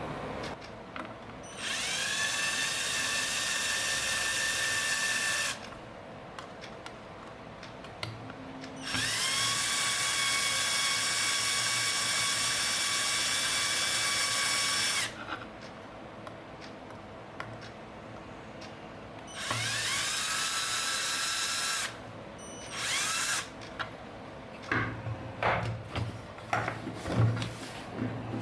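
Power drill running in four bursts, its motor whining up to speed at the start of each, the second the longest and the last very short. Near the end, a string of light clicks and knocks.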